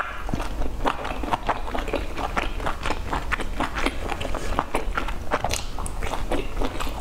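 Close-up chewing and biting of sauce-dipped dumplings: rapid, wet mouth clicks and smacks, with a steady low hum underneath.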